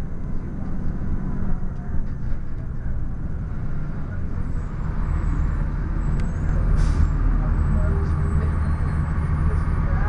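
A 2002 Blue Bird CS transit bus's Cummins ISC inline-six diesel running, a little louder in the second half, with a short hiss of compressed air about seven seconds in.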